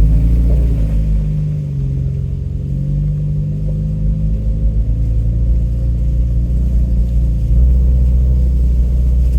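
Off-road truck's engine pulling on a rough trail, its revs rising and falling for the first few seconds, then running steady, with a faint steady whine above it.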